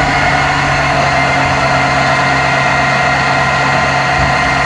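Old CNC lathe's spindle and chuck running at steady speed, a steady machine whine with several tones held level.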